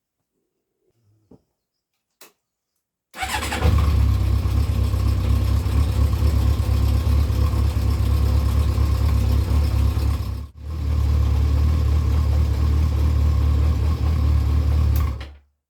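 Yamaha XJ600's air-cooled inline-four engine running steadily with fresh oil in it, starting abruptly about three seconds in. It drops out for an instant partway through, then runs on and stops just before the end.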